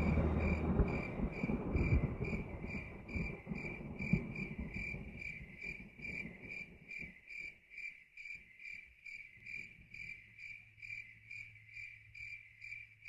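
Cricket chirping steadily in even pulses, about three a second, over a low rumble that fades away over the first half. Both cut off suddenly at the end.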